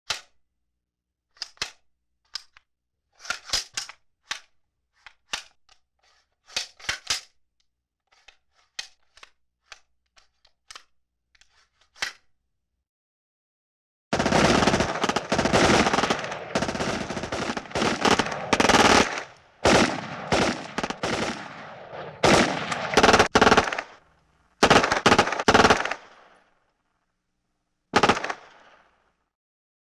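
Machine gun fire. First come single shots and short bursts of two or three rounds, separated by silent gaps. Then about twelve seconds of near-continuous automatic fire with brief breaks, and near the end one last short burst.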